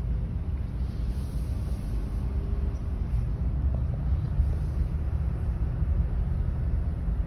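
Steady low rumble of a car's road and engine noise, heard from inside the cabin while the car is driving.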